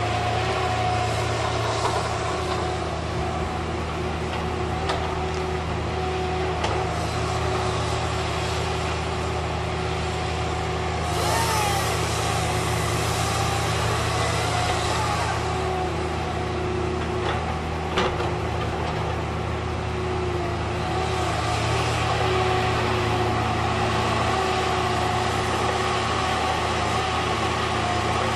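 Heavy diesel engines of a knuckleboom log loader and slasher saw deck running steadily. Midway a rushing hiss rises for a few seconds, and a single sharp knock follows a little later.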